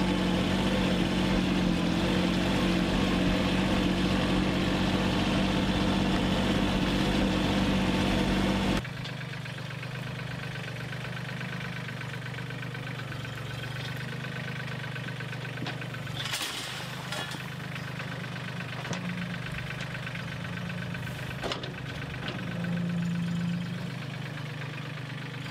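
Compact tractor engine running steadily, loud and close from the driver's seat. After about nine seconds it cuts to the same engine heard from a few metres away, noticeably quieter, with a few light knocks and a brief swell in engine level near the end.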